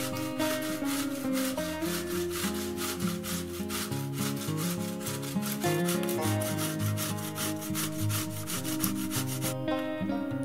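Cooked beetroot being coarsely grated on a stainless steel box grater: fast, even rasping strokes, about four a second, that stop near the end.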